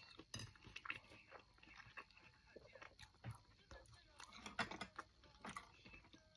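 Close-up mouth sounds of a person eating: chewing and biting chicken, with irregular soft wet clicks and smacks.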